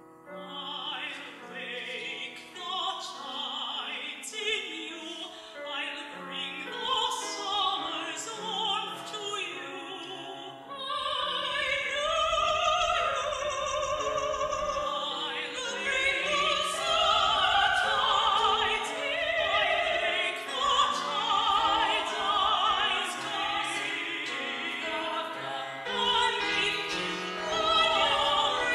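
Classical soprano singing with piano accompaniment, the voice growing louder and fuller about eleven seconds in. The recording is from a very old cassette tape, so the sound is a bit wobbly and uneven.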